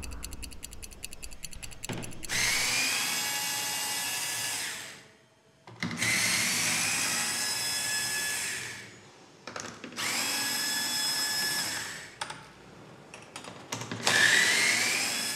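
Cordless electric screwdriver backing out the screws of a transaxle cover: four separate runs of a couple of seconds each, the motor whine rising in pitch as each run starts. A rapid, even ticking comes first.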